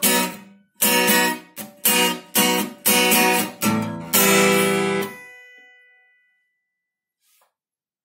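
Acoustic guitar strummed: a run of short chord strokes, then a last chord about four seconds in that is left to ring and fades out over about two seconds, ending the song.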